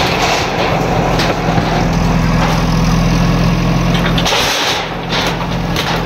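A JCB backhoe loader's diesel engine runs steadily while its arm pushes through corrugated metal sheeting, with scraping and crashing of the sheets. The engine hum drops away briefly about four seconds in, during a louder clatter.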